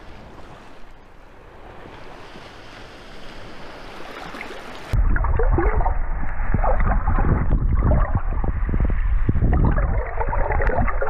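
Gentle wind and shallow surf water at first. About five seconds in the microphone goes under water, and the sound turns into loud, muffled underwater sloshing and bubbling, with no high end.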